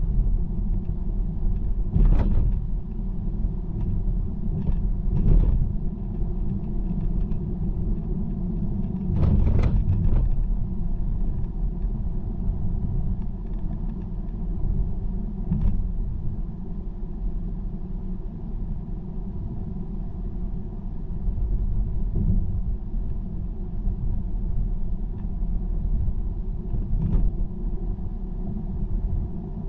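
Steady low rumble of a car travelling at motorway speed, mostly road and tyre noise. Five or so short, louder swells break through it, such as passing vehicles or bumps in the road.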